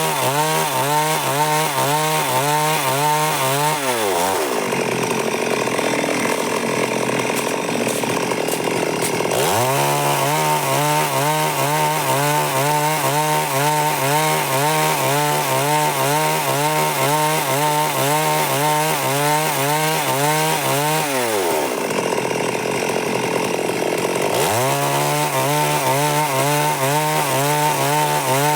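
Stihl MS382 two-stroke chainsaw cutting wood at high revs. About four seconds in and again about three-quarters of the way through, the engine note drops away into a rougher, noisier sound for a few seconds, then climbs back to a high steady pitch.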